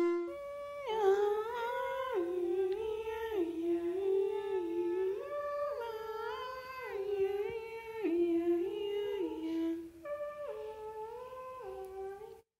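A single voice humming a slow, wordless melody, stepping up and down between held notes, with a short pause about ten seconds in.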